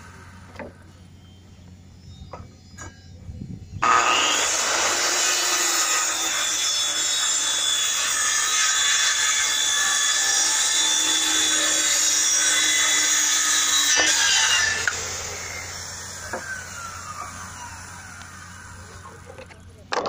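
A few light knocks, then a handheld circular saw starts about four seconds in and cuts through plywood for about eleven seconds. It is then released and winds down, its whine falling as the blade coasts to a stop.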